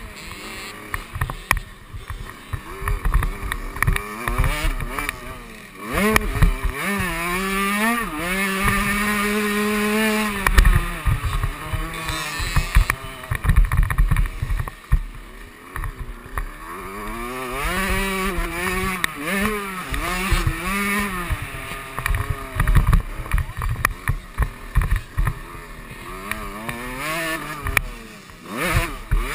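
KTM 65 two-stroke single-cylinder dirt bike engine revving hard and easing off again and again as it is ridden through the turns and straights of a motocross track. Its pitch climbs and drops with throttle and gear changes, with short low thumps throughout.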